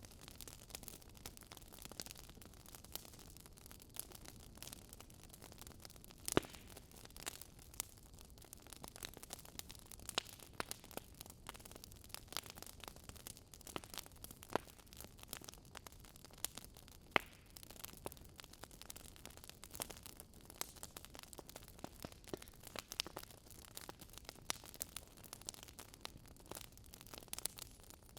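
Wood fire crackling: irregular sharp pops and snaps of burning logs over a faint steady hiss, with a louder pop about 6 seconds in and another about 17 seconds in.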